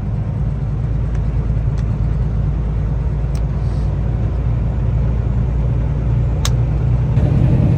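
Steady low drone of a Peterbilt 579 semi truck's Cummins diesel and road noise, heard from inside the cab while driving, with a couple of faint clicks.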